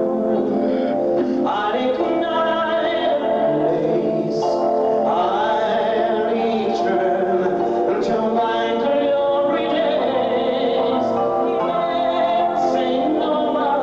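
Male singer singing a slow musical-theatre ballad live into a microphone, with sustained notes over a full instrumental accompaniment.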